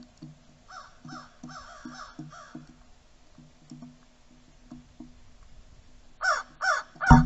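Crows cawing: a run of fainter caws in the first few seconds, then three loud caws in quick succession near the end.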